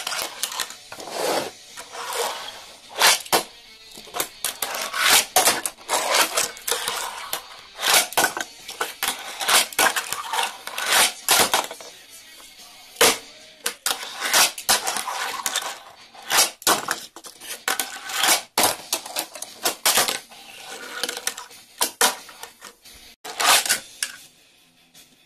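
Tech Deck fingerboard riding toy skate ramps and a wooden tabletop: rolling wheel noise broken by many sharp clacks as the board lands and hits the ramps.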